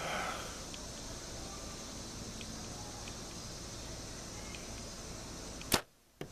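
Steady chirring of insects outdoors. Near the end comes a single sharp snap of a bow being shot, followed by a brief drop-out of the sound and a couple of small clicks.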